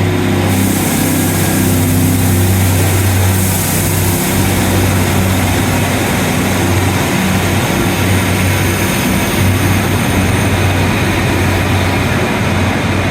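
Diesel train's engine running at the station platform: a loud steady low drone under an even rushing noise, the drone dropping away near the end.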